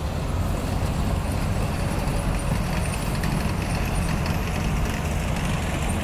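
Balkar combine harvester's engine and machinery running steadily under load while harvesting ripe paddy, a continuous deep drone.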